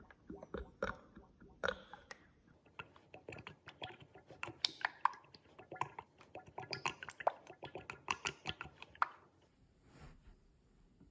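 Oil sloshing: a rapid, irregular run of wet squishing and clicking sounds that stops about nine and a half seconds in.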